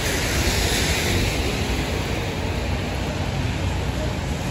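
Traffic on a rain-wet city street: a steady wash of tyre hiss and engine noise over a low rumble, with the hiss swelling and easing in the first two seconds.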